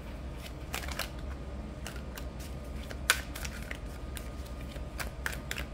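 A deck of tarot cards being gathered and shuffled by hand, giving scattered crisp clicks and flicks of card stock at an irregular pace. The sharpest click comes about three seconds in.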